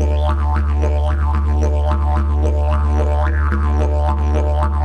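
Background music: a steady low drone under a regular rhythmic pulse.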